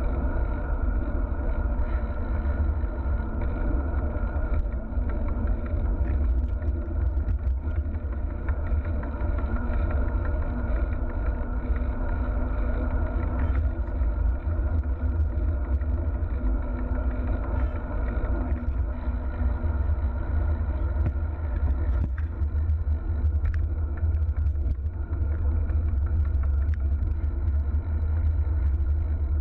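Steady road-traffic rumble with a car engine running close by, unchanging throughout.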